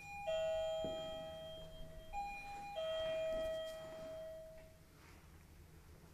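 Doorbell chime rung twice, each time a two-note ding-dong: a high note, then a lower note that rings on and fades. The second ding-dong comes about two seconds after the first, and its lower note dies away about five seconds in.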